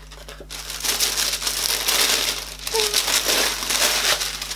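Tissue paper crinkling and rustling as it is unfolded and pulled back from the contents of a cardboard gift box, starting about a second in.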